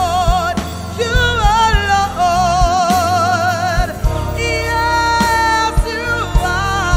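Gospel song performed live: a woman singing long, high notes with wide vibrato over a band of keyboard, bass guitar and drums keeping a steady beat.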